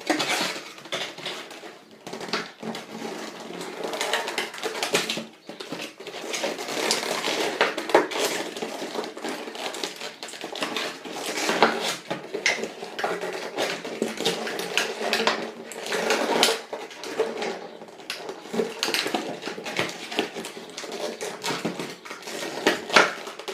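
Packaging being handled and pulled open by hand: constant crinkling, scraping and rustling broken by many irregular clicks and knocks.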